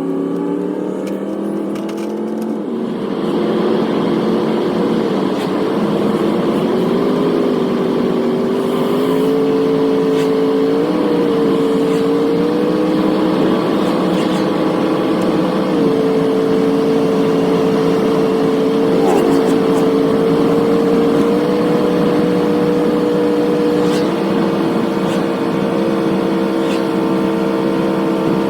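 GMC van's engine heard while driving, its pitch rising as it pulls away in the first few seconds, then holding steady at cruise with small shifts in pitch.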